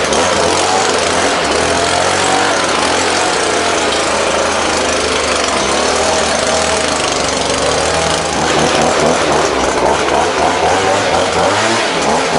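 Gas-engine leaf blower running steadily, its small engine hum under a loud rush of air, blowing dust and debris out of a porch.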